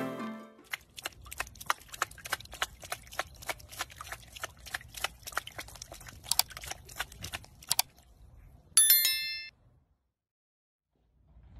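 A run of quick, light clicks, several a second, for about seven seconds. Then a short, bright bell-like ding nearly nine seconds in, the kind of notification-bell sound effect that goes with an animated subscribe button.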